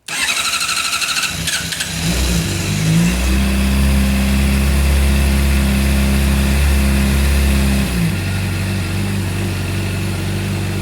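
2014 Honda CBR600RR inline-four being cranked on its electric starter with the engine hot (218°F), a hot restart typical of the hard-start-when-hot problem the owner is chasing. It cranks for about two seconds before catching, runs up to a raised idle, then settles to a lower steady idle about eight seconds in.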